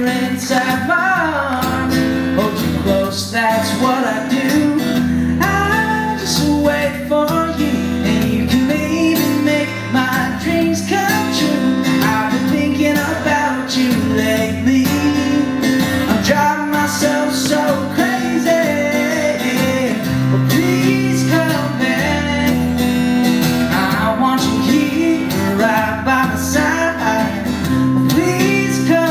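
Live music: a strummed acoustic guitar with a man singing a pop song.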